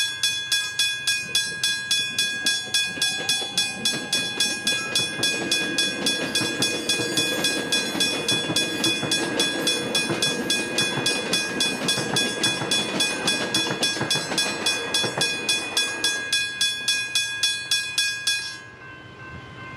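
Westinghouse hybrid level-crossing bell ringing in rapid, even strikes, about three a second, as a train passes over the crossing in the middle of the stretch. The bell stops shortly before the end as the crossing clears.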